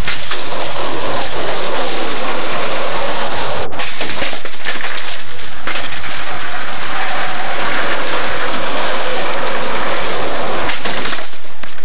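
Skateboard wheels rolling over rough concrete, a loud steady rolling noise close to the microphone, with short breaks about four and six seconds in.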